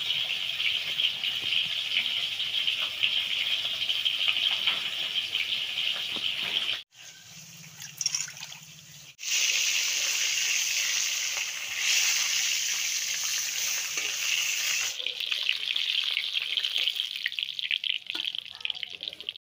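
Fish pieces frying in hot oil in an iron wok: a steady hissing sizzle. About seven seconds in it drops away for two seconds, leaving only a low hum, then comes back.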